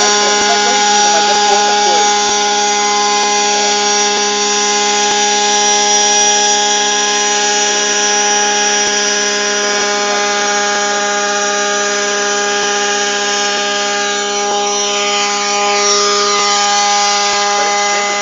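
Model helicopter's motor and rotor running steadily, an even high-pitched mechanical whine.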